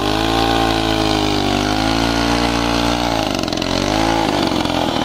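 Engine of a homemade two-wheel-drive motorcycle running under load as it crawls through mud and tall grass, its pitch rising and falling with the revs. About three seconds in it turns rougher and revs higher.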